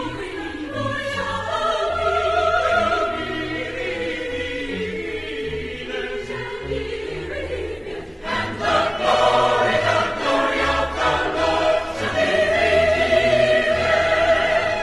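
Closing theme music: choral singing in long held notes over a low bass accompaniment, swelling louder about eight seconds in.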